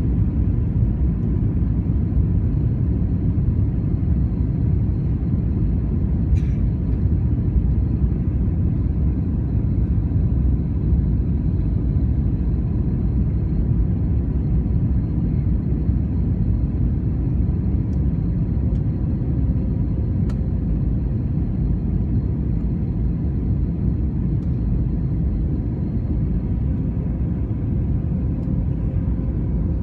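Jet airliner cabin noise on approach: a steady low rumble of the engines and rushing air heard from a window seat, with a faint steady high whine and a few faint ticks.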